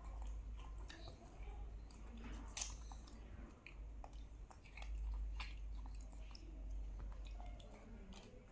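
A baby macaque and a toddler chewing juicy pomelo segments: soft wet smacks and small clicks of mouths and fruit, over a low steady hum.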